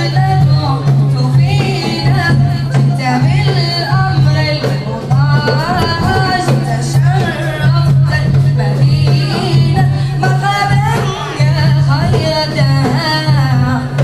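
A nasheed sung by a vocal group: melodic, ornamented sung lines in a Middle Eastern style over a steady low drone.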